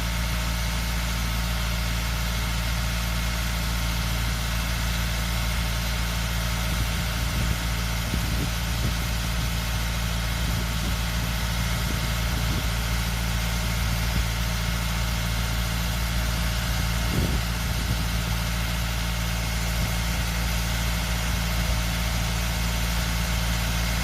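Tractor engine running at a steady idle, with a constant low hum and a few faint knocks about seven and seventeen seconds in.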